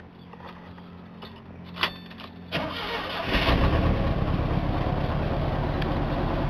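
Chevrolet S10 pickup engine cold-started with no gas pedal: after a click it turns over and catches about three seconds in, then settles into a steady idle.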